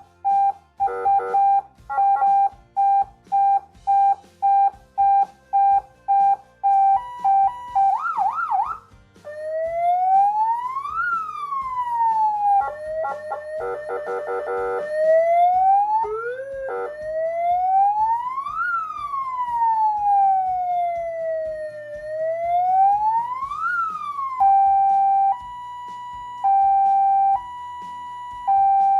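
CJB 200 W nine-tone electronic siren through its speaker, stepping through its tones. First a rapidly repeated short beep on one pitch, then a quick warble about eight seconds in, then slow rising-and-falling wails broken by a burst of fast yelps. In the last few seconds it switches to a two-tone hi-lo, alternating about once a second.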